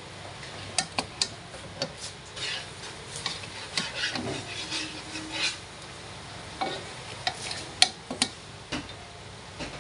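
Metal spatula scraping and knocking against a wok as vegetables and meat are stir-fried, in irregular strikes over a steady light sizzle.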